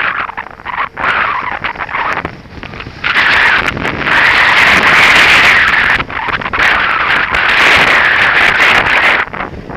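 Skis hissing and scraping over snow during a run, mixed with wind rushing over the microphone, swelling and easing in long surges, loudest in the second half.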